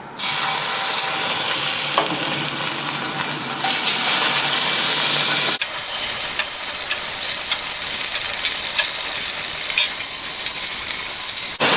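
Chicken drumsticks searing in hot oil in a pan: a steady sizzle with a few scattered pops of spattering oil. The sizzle changes abruptly about halfway through.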